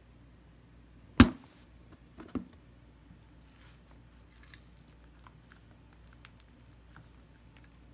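A sharp smack about a second in and a smaller one about a second later, then faint squishing and crackling as a hand presses shaving foam over a balloon on a tabletop.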